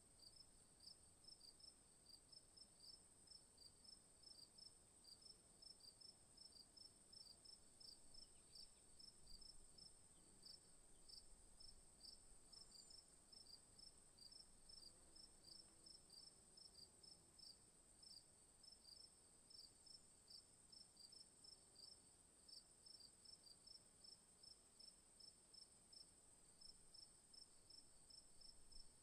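Faint insect chorus in the bush: a steady high-pitched drone with crickets chirping over it in an even rhythm of about four chirps a second.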